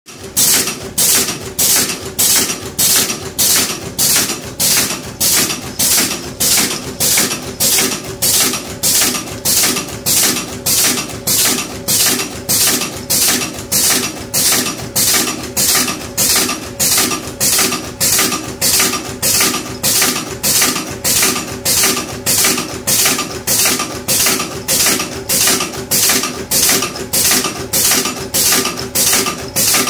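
Automatic aluminium-clip forming machine running, cycling at about three strokes every two seconds. Each stroke gives a short, sharp burst over a steady machine hum.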